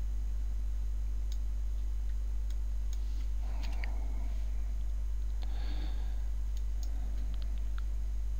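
Scattered computer mouse clicks over a steady low hum, with a couple of soft breaths in the middle.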